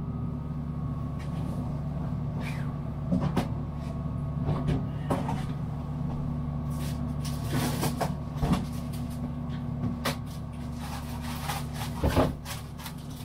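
Steady hum of a boat's cabin air conditioner running, with scattered clicks, knocks and rustles of someone rummaging in a cupboard for a bag of chips, the loudest knocks coming near the end.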